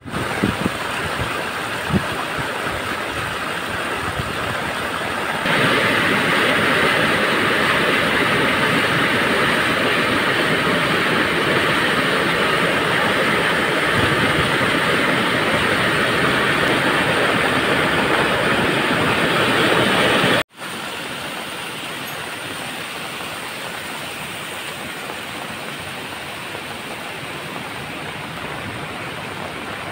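Steady rush of floodwater and torrential rain, with water streaming down stone steps and walls. It grows louder about five seconds in, then after a sudden cut about twenty seconds in it is a quieter, even rush.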